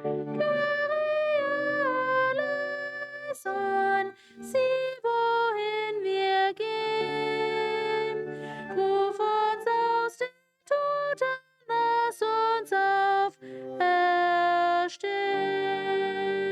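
A slow hymn melody in held notes, its phrases separated by short pauses.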